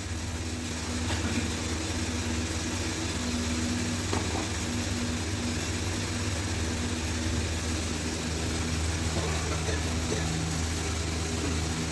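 A steady, unbroken mechanical hum from a running motor, with a constant low drone and a fainter steady tone above it.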